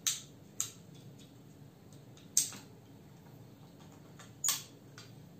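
Sharp plastic clicks and snaps from an action camera's clear waterproof housing as its latch is unclipped and the camera is worked out of it. There are four louder clicks, the loudest about two and a half seconds in, with fainter handling taps between.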